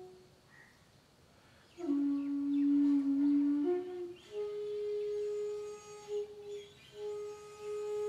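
Shakuhachi flute playing slow, long held notes. After about two seconds of near quiet comes a low note, a short step up, then a higher note held twice with a brief break between.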